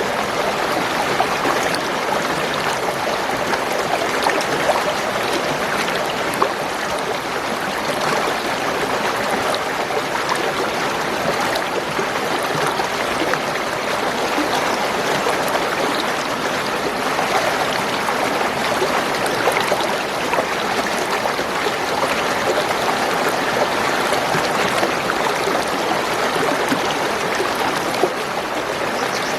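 Spring water gurgling and trickling steadily over stones, a continuous burble with no pause.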